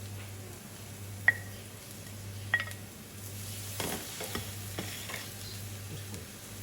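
Browned onion and ginger garlic paste sizzling in hot oil while being stirred, with two sharp metallic clinks early on and a run of scraping stirring strokes past the middle, over a steady low hum.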